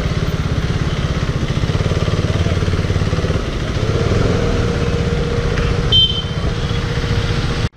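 KTM Duke 390's single-cylinder engine running at low speed with a steady, even pulsing beat as the bike is ridden slowly through a U-turn. The sound cuts off suddenly near the end.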